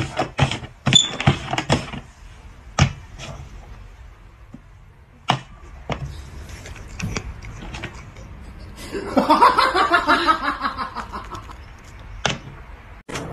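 Hollow plastic cups being set down and knocked on a board during a cup-shuffling game, in a quick run of sharp knocks over the first two seconds, then single knocks now and then. Past the middle comes a wavering, voice-like pitched sound lasting about two seconds.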